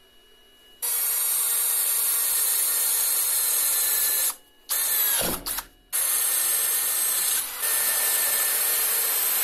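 Greenworks cordless drill boring a 6 mm hole through 3 mm steel strip clamped in a vise: the motor whines steadily while the bit cuts. It comes in two runs of about three and a half seconds each, with a short burst falling in pitch about five seconds in.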